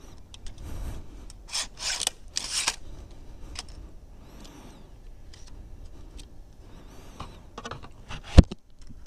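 Crossbow and bolt being handled during reloading: rubbing and scraping, with a few louder scrapes about two seconds in. A single sharp snap near the end is the loudest sound.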